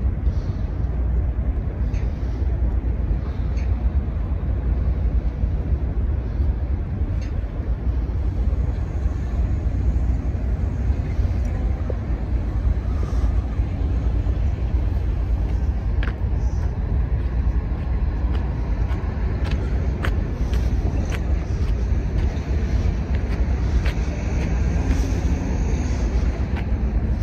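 Steady low rumble with an even hiss over it and a few faint clicks about halfway through and later.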